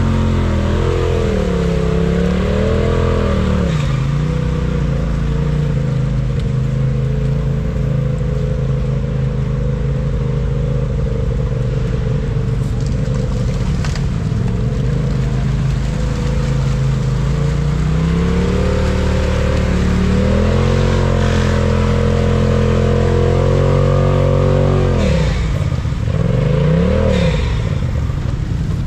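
Lifted Polaris RZR side-by-side's engine revving as it churns through a deep, water-filled mud hole, the revs dropping and climbing again several times.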